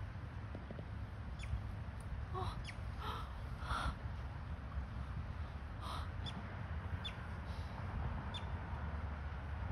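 Short high chirps, each falling in pitch, recurring every second or so, with a few louder, rougher calls about a third of the way in, over a steady low rumble.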